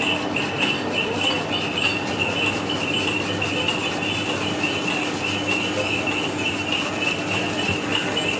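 A piece of fruit scraped by hand against a metal box grater, in repeated strokes. Over it runs a steady, high-pitched, fluttering drone that lasts the whole time.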